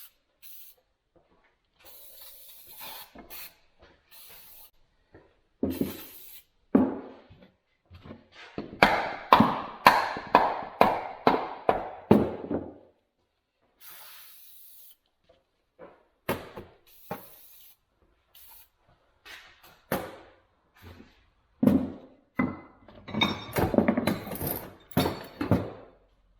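Aerosol penetrating oil sprayed in several short hissing bursts onto a seized steel vise part. Later come two runs of rapid hammer blows on the metal, the loudest sounds, driving the stuck part out.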